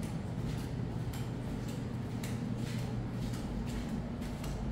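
Footsteps on a bare concrete floor, soft short taps about twice a second, over a steady low hum.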